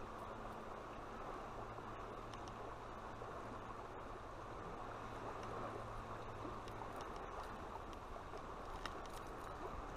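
Steady rush of a flowing river, with a few faint clicks.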